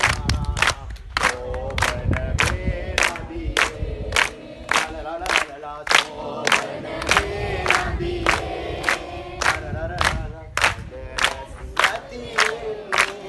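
A large group of schoolchildren singing together while clapping their hands in time, about three claps a second.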